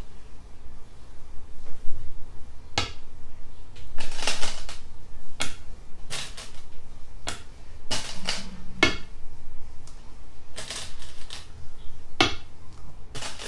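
Go stones being placed on a go board one after another, a series of sharp clacks at irregular intervals, some in quick clusters, as a line of moves is laid out.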